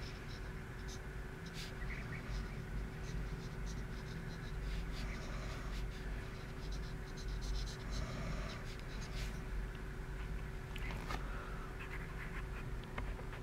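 Graphite pencil scratching on sketchbook paper in short, irregular strokes, over a steady low hum.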